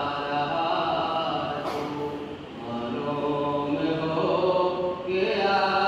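A noha, a Shia mourning lament, chanted by voice without instruments in long drawn-out notes, with a short break about two seconds in.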